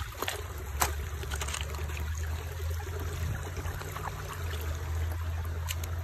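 Shallow creek water trickling over rocks, under a steady low rumble on the microphone, with a sharp knock about a second in and another near the end.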